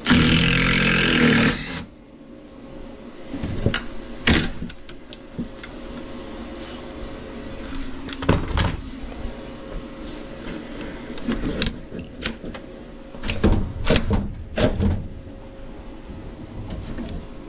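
Work noises at a furnace cavity: a loud rush of noise for about the first two seconds, then scattered knocks, clicks and clatters of hands and tools on the wooden framing. Underneath is a faint steady hum from a refrigerant recovery machine still running.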